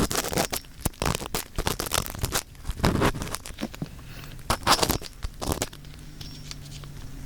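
Earpick scraping and rustling right against the ear of a 3Dio binaural microphone, in irregular bunches of close, crackly strokes. It eases off near the end, leaving a faint low hum.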